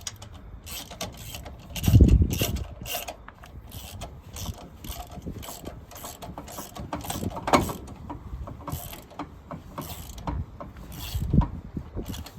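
Metal hand tools clicking and clanking on the truck's front wheel lug nuts and studs, with a heavy knock about two seconds in and another near the end.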